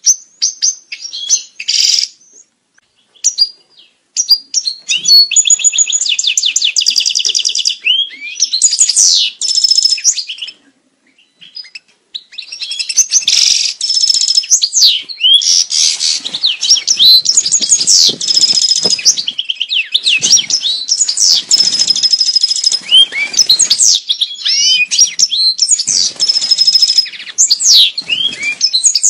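European goldfinch mating song: fast twittering phrases of rapid trills and buzzy notes. There is a sparse stretch a couple of seconds in and a short pause about ten seconds in, then unbroken singing.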